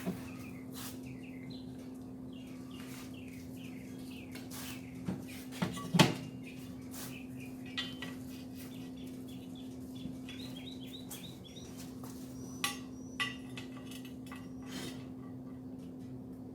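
Steel pieces being handled and set down in a shop: scattered metal clinks and a few sharp knocks, the loudest about six seconds in, over a steady low hum, with small birds chirping in the background.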